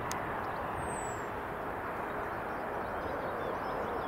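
Jet engines of an Airbus A320-family airliner on the runway, heard at a distance as a steady rushing noise, with wind buffeting the microphone. A single sharp click comes just after the start, and faint bird chirps sound in the background.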